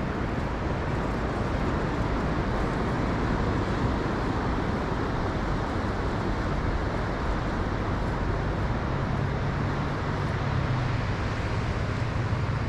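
Steady outdoor rushing noise with no clear events, joined by a low hum about nine seconds in.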